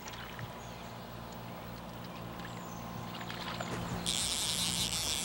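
Fly reel's click drag buzzing for about a second as a hooked fish pulls line off. It starts and stops abruptly near the end, over a steady low hum.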